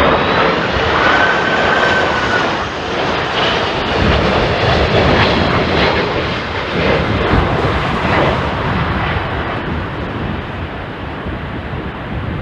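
Jet airliner's engines running loud as the plane passes close, with a thin whine near the start, then fading over the last few seconds.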